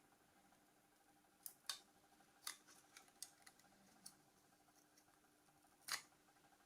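Faint, scattered clicks and taps of small plastic and metal parts of a Nokia 6210s Navigator being handled during disassembly, about seven in all, the loudest near the end, over a faint steady hum.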